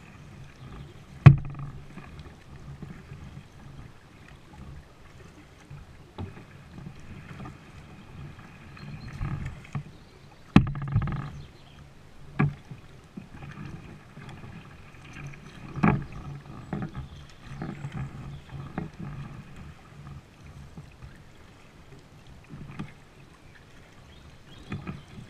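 Plastic kayak being paddled through calm water: paddle strokes dipping and splashing, with a few sharp knocks of the paddle against the hull, the loudest about a second in.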